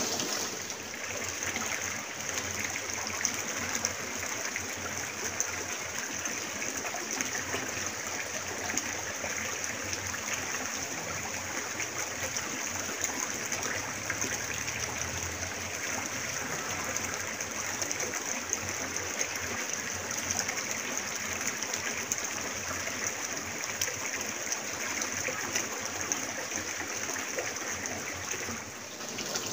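River water running steadily, an even rushing sound that holds throughout.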